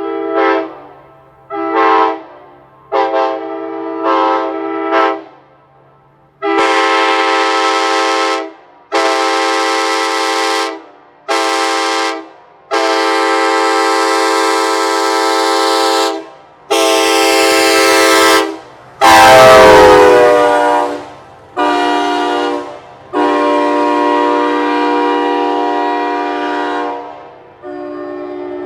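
Late-1980s new-old-stock Nathan K5LA five-chime train horn on a truck, sounded in about five short toots and then a series of long blasts. The loudest blast, about two-thirds through, starts with a sudden low thump and wavers in pitch before settling.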